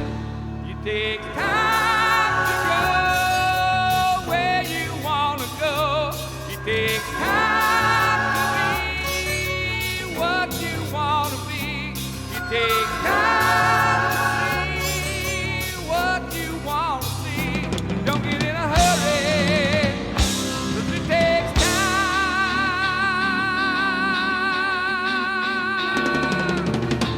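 Southern rock song playing, with drums and bass under sung phrases that waver in pitch, and a long held note near the end.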